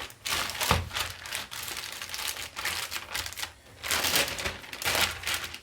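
Plastic bag crinkling and rustling in uneven bursts as hands press a sticky date mixture down into its corners.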